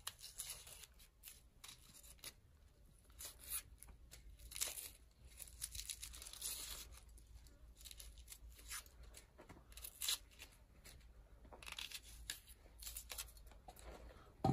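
A knife slicing through a raw onion held in the hand, an irregular run of short, crisp cuts with a few longer strokes.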